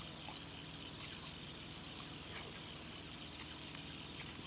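Quiet outdoor background: a steady faint hiss with a few faint, scattered bird chirps.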